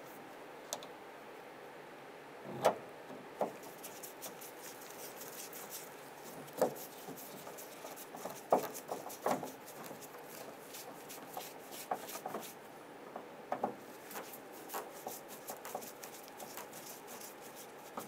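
Phillips screwdriver turning the pull-strap screws into the liftgate's plastic trim: fine, rapid ticking and scraping as the screws turn, with a few sharper clicks and knocks from the tool and panel.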